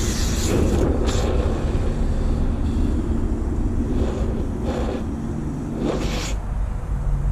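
Hose-end foam gun spraying car shampoo into a bucket: a hiss of spray at the start, then several short hissing bursts, over a steady low rumble.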